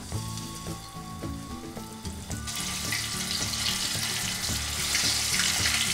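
Floured artichoke pieces deep-frying in a pot of hot oil: a loud, steady sizzle starts about two and a half seconds in as they go into the oil. Light background music plays throughout.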